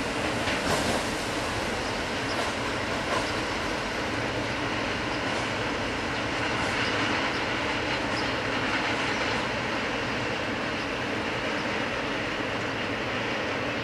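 Freight train of tank wagons rolling away on the rails: a steady rumble of wheels on track, with a few clicks of wheels over rail joints in the first few seconds.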